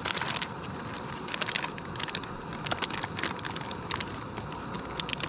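Backpacking canister stove burning with a steady hiss, with scattered light clicks and taps throughout.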